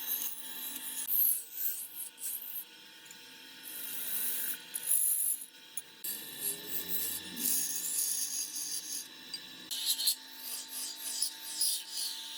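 A turning tool cutting wood spinning on a wood lathe. A hissing scrape stops and starts every second or two, over a faint steady hum.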